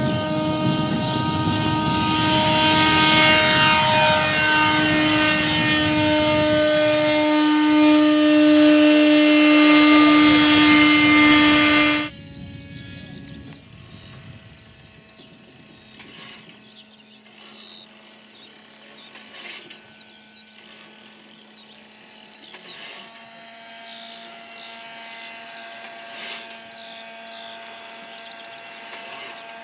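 Paramotor trike engine and propeller running at full power on the takeoff roll, its pitch sliding as it passes. About twelve seconds in the sound drops suddenly to a much fainter, steady drone of the paramotor climbing away, with a few faint clicks.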